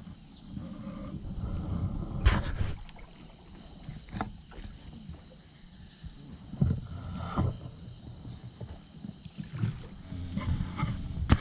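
Canoe being paddled: water swishing and splashing with the paddle strokes, and a few sharp knocks of the paddle or gear against the hull, one about two seconds in and another near the end. Faint steady high calls sound in the background.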